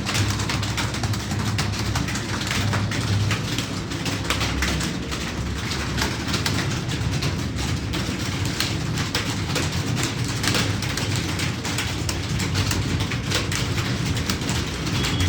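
Computer keyboard keys clattering in a rapid, continuous, irregular stream of clicks during a typing speed test, over a steady low hum.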